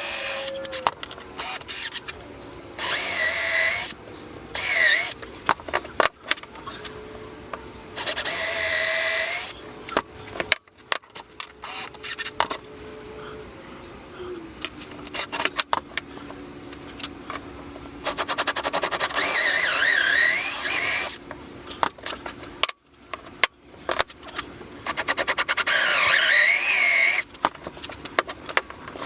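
Power drill running in short trigger bursts of about one to three seconds, six of them, its whine wavering and dipping in pitch as it loads up, typical of driving screws into wood.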